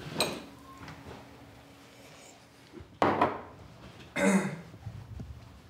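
A few sudden knocks and thuds in a small room: a sharp click at the start, a loud thud about three seconds in and a second knock about a second later.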